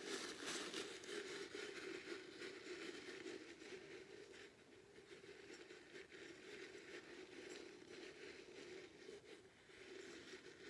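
Faint rustling and scraping of a paper napkin being wadded and pushed into the mouth of a glass jar, a little louder in the first couple of seconds.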